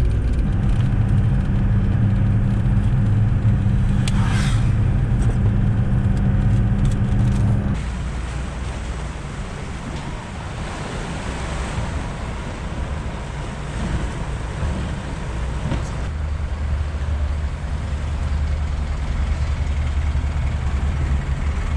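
Ford Transit camper van's engine running while driving, heard from inside the cab as a steady low drone, with a brief rattle about four seconds in. About eight seconds in it cuts to a broad outdoor noise, and a low engine hum returns later.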